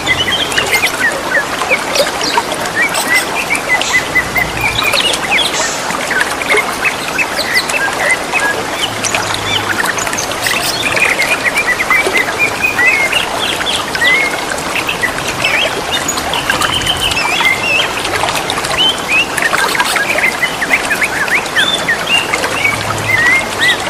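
Green leafbirds (cucak ijo) calling back and forth, a dense run of quick chirps and whistled notes, over the steady trickle of running water.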